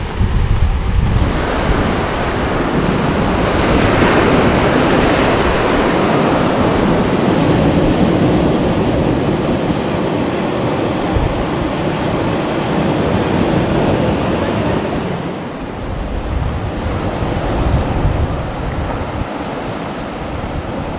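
Surf breaking and washing up a sandy beach: a steady noisy wash that swells and ebbs with each wave. Wind rumbles on the microphone in the first second, then the waves take over.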